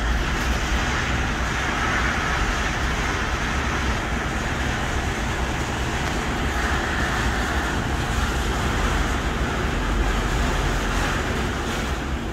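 Semi-truck diesel engines idling side by side, a steady low rumble under a broad hiss that swells and eases a few times. The neighbouring truck is idling to build up its air pressure.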